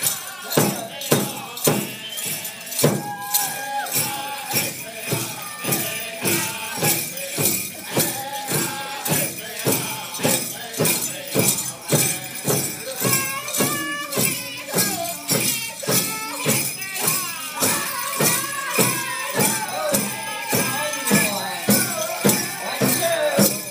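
Powwow drum and singers for a grass dance: a large drum struck in a steady beat of about two strokes a second, with the singers' voices wavering above it.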